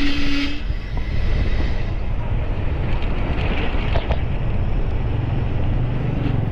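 Steady wind and road rumble on the microphone while riding, with a horn ending about half a second in.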